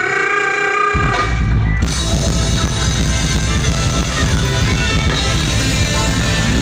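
Live band playing during a sound check. A held note opens it, then about a second in the bass and drum kit come in, with cymbals joining shortly after, and the band plays on loudly.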